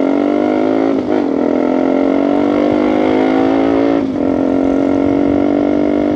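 KTM RC250's single-cylinder engine pulling hard under acceleration, its note climbing steadily, with two quick upshifts about one second and four seconds in.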